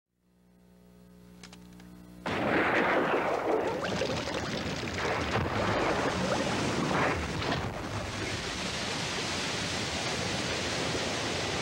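A liquid gusher spouting from the ground: a loud, steady rushing spray that starts suddenly about two seconds in and swells briefly a few times. Before it, a faint steady hum fades in.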